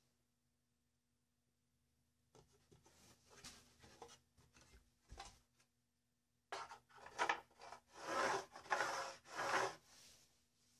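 Wood rubbing and scraping against wood, in irregular hand-made strokes: softer and scattered at first, then louder strokes from about six and a half seconds in.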